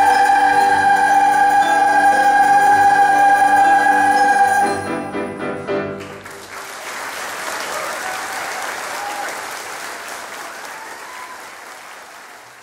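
A boys' choir holds the final chord of a carol, which dies away about five seconds in, followed by audience applause that slowly fades out.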